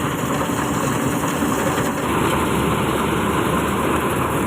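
Diesel engine and machinery of a rice harvesting machine running steadily.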